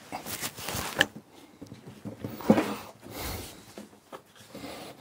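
Metal clicks and knocks from a break-bar torque wrench being fitted and pulled on the terminal nuts of a battery isolator switch, with handling noise on the workbench. There is a sharp ringing click about a second in and a heavier knock about two and a half seconds in.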